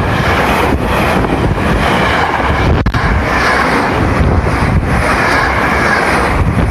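Tobu Skytree Line electric commuter train passing close by at the level crossing: a loud, steady rush of wheels on rail, dipping briefly about once a second.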